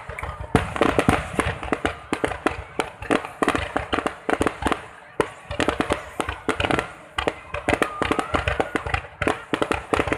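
Fireworks going off: a dense, irregular string of sharp bangs and crackles, several a second, with no let-up.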